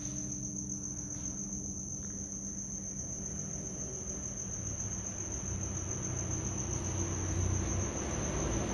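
Insects, typical of crickets, trilling steadily on one high, unbroken pitch.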